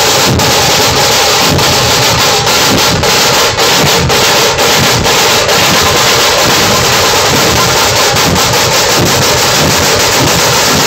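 Dhol-tasha ensemble playing: many dhol barrel drums and tasha drums beaten together, very loud, as a dense continuous din.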